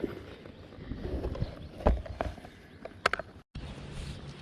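Buzzbait lure clattering: a few scattered metallic clicks and clacks from its blade knocking against the wire, with a quick cluster about three seconds in.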